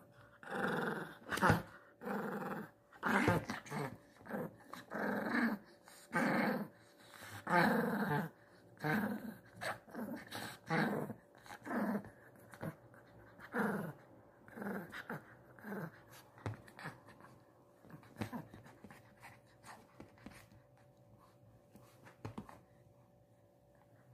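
Small white dog growling, a run of short growls coming every second or so, then fading to a few faint sounds after about fourteen seconds.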